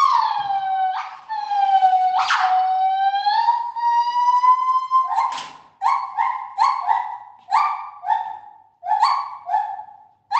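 Gibbons calling, loud. A long held whooping note near the start dips in pitch and then slowly rises over about five seconds, then breaks into a run of short hoots, each falling slightly, about two a second.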